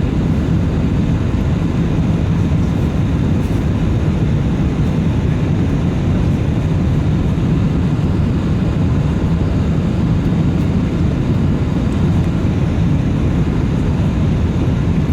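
Steady roar of the Airbus A380-800's Rolls-Royce Trent 900 jet engines and rushing air, heard inside the passenger cabin while the airliner climbs after takeoff; the sound is even, with most of its weight low in pitch.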